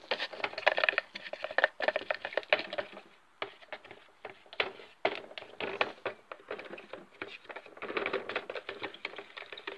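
A stirring stick clicking and scraping around the inside of a plastic bucket as fibreglass resin is mixed with its hardener: a rapid, irregular run of clicks that eases off briefly about three seconds in.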